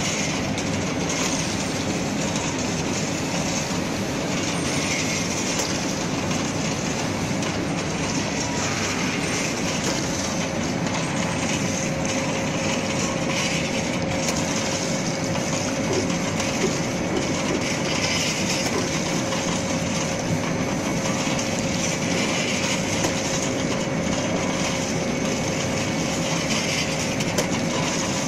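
Stainless steel continuous peanut fryer line running, its mesh conveyors and drive motor making a steady mechanical clatter and rumble. A faint steady whine joins about twelve seconds in.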